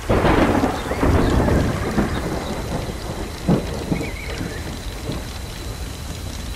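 Thunderclap breaking suddenly, with a second roll about a second later, then rumbling away over the next few seconds above steady rain. Two sharp cracks come near the middle.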